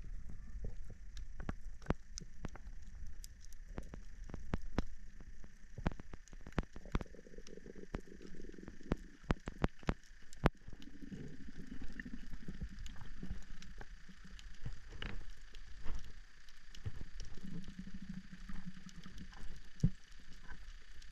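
Underwater sound picked up by a camera in its housing while freediving along a coral reef wall. A low rumble of moving water runs under scattered sharp clicks and crackles, with a faint low hum that comes and goes a few times.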